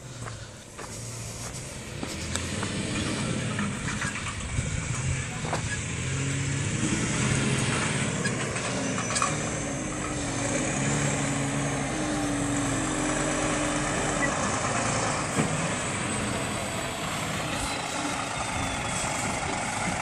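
Scania P360 fire engine's diesel engine driving the truck off-road, its low engine note shifting up and down in steps. It grows louder about two seconds in.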